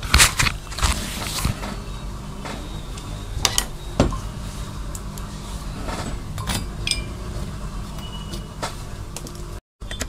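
Small metal parts of a DLP projector's optical block and its aluminium DMD heat sink clicking and knocking as they are handled and fitted together with a screwdriver, a few sharp taps scattered through, over a steady low hum.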